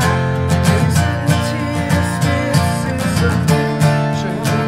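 Two acoustic guitars strummed together in a steady rhythm, with a man singing over them.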